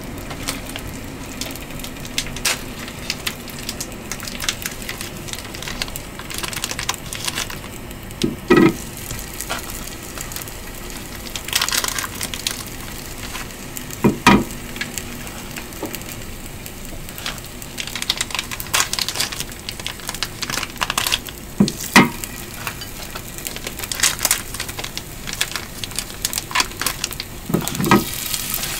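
Oil crackling and sizzling in a square frying pan as round mochi rice cakes are set in one at a time, each landing with a soft thud every several seconds.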